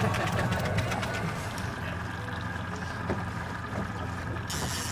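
Boat's outboard motor running steadily at trolling speed, a low even hum under wind and water hiss; the hiss turns brighter about four and a half seconds in.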